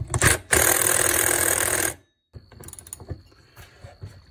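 Cordless impact driver hammering on a chainsaw's clutch nut, a short burst and then a longer one of about a second and a half; the nut is stuck fast and does not come loose. After a break there are fainter clicks and clinks of a socket wrench on the metal.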